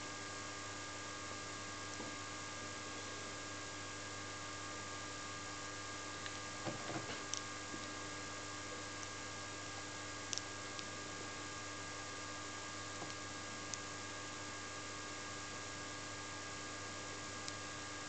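Steady low electrical hum with a faint hiss. A few faint clicks and handling noises come around seven seconds in and again around ten seconds.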